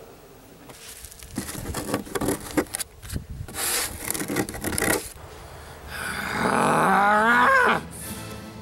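Playing cards being slid, shuffled and scraped across a rough wooden table top: rubbing and rasping strokes. Near the end comes a loud, drawn-out wavering sound that rises in pitch for nearly two seconds.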